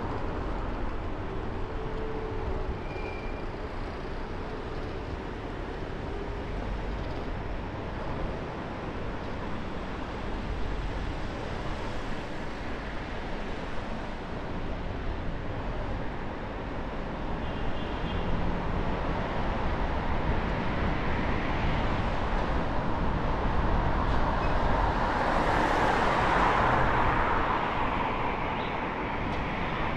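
Car driving through city traffic: a steady rumble of tyres and engine with road noise, building to a louder rush in the last third.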